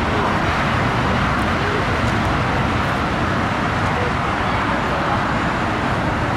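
Steady jet engine noise of an Airbus A321 airliner on short final approach to landing: an even roar with a low rumble underneath.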